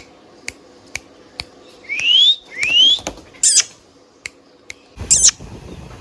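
Indian ringneck parrot giving two quick rising whistles, then short shrill screeches, with a few sharp clicks in between.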